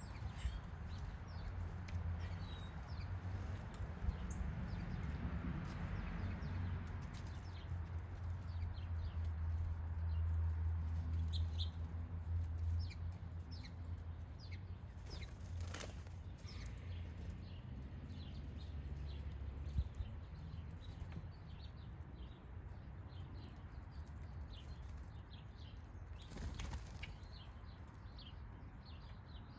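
Backyard birds at a feeder: wing flutters as birds take off and land, twice standing out sharply, with scattered faint high chirps over a steady low rumble.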